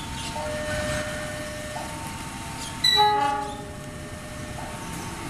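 Level-crossing warning signal sounding, alternating between two tones. About three seconds in, the approaching diesel locomotive gives one short horn blast, the loudest sound, over the low rumble of the train.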